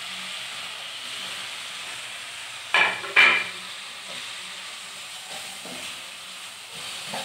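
Sliced onions and tomatoes sizzling in hot oil and ginger-garlic paste in a frying pan as they are stirred, a steady hiss. Two short, louder sounds come about three seconds in.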